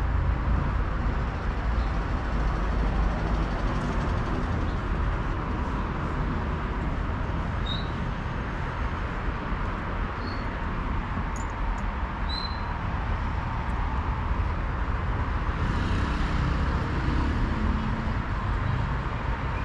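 City street ambience: steady traffic rumble, with a few short high chirps in the middle.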